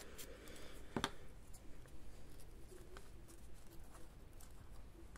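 Faint rustling and tapping of paper scraps being handled, with one sharp scissor snip about a second in.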